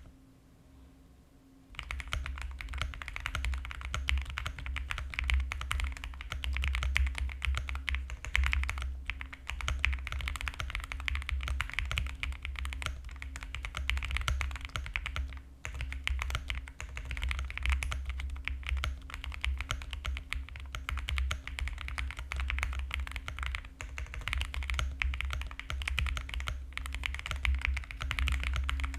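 Continuous fast typing on an Owlab Spring Alice-layout mechanical keyboard with SOTC linear switches lubed with Krytox 205g0, PBT keycaps and a polycarbonate plate. The typing starts about two seconds in after a brief quiet moment and runs on with short pauses.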